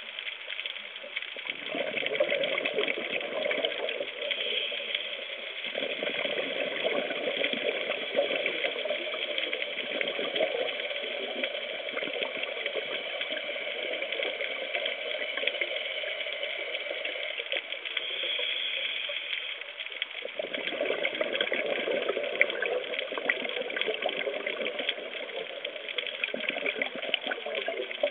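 Scuba diver breathing through a regulator underwater: three long bursts of exhaled bubbles, each several seconds long, over a steady hiss, with a quieter stretch in the middle.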